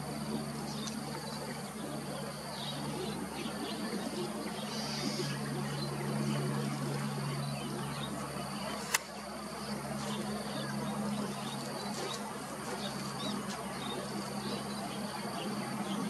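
Outdoor ambience: an insect's thin, high, steady buzz drops out and comes back several times over a low steady hum, with one sharp click about nine seconds in.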